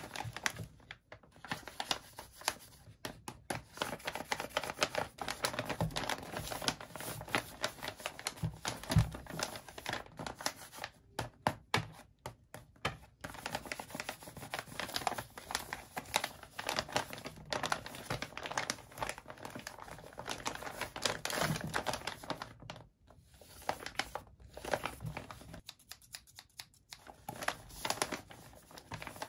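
A hand-drawn paper bag being handled and turned over, its paper rustling and crinkling in dense little crackles, with a few brief pauses.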